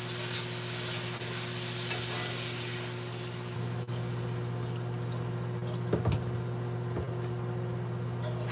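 Beef broth poured into a hot skillet of onions and browned flour, sizzling as it goes in, with a wooden spoon stirring through it. The hiss is strongest over the first three seconds and then dies down; a steady low hum runs underneath.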